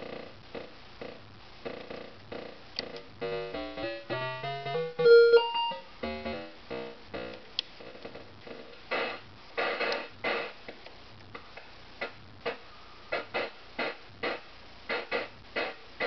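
Barton Musical Circuits Dual Decaying Noise module, an 8-bit digital percussion synth voice in tone mode, firing short decaying beeps in a steady rhythm. As the knobs are turned, the pitch jumps up and down note by note, and the hits grow longer and hissier before shortening again.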